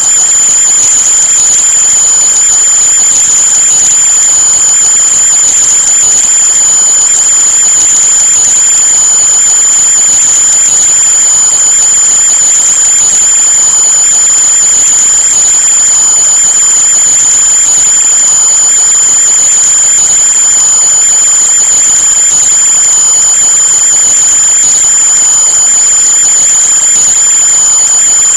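A loud, steady, high-pitched whine with a fainter lower tone beneath it, over a constant hiss.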